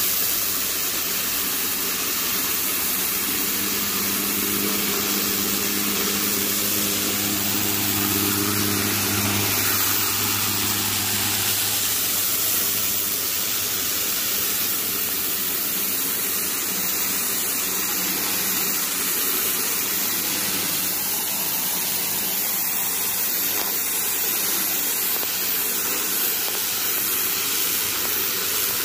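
Ryobi 1800 PSI electric pressure washer running with its trigger held: the steady hiss of the water jet over a low motor hum, which is stronger for the first ten seconds or so.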